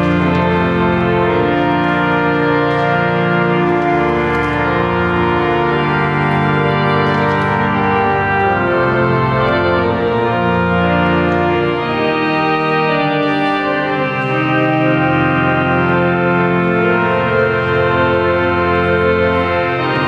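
Church organ playing slow, sustained chords.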